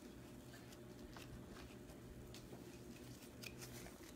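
Near silence: room tone with a faint steady low hum and a few faint ticks.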